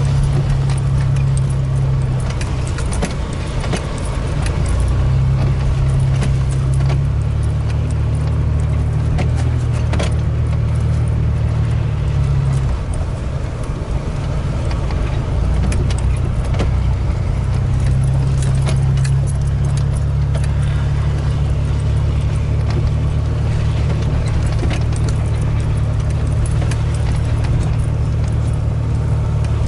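Vehicle engine running with a steady low drone as it drives slowly along a rough, rutted dirt track, heard from inside the cab, with frequent rattles and clicks from the cab interior.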